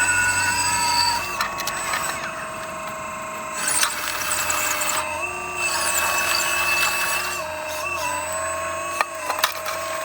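Radio-controlled model excavator's electric hydraulic pump whining, its pitch stepping up and down every second or two as the controls are worked, with scraping noise and clicks from the bucket in the riverbed.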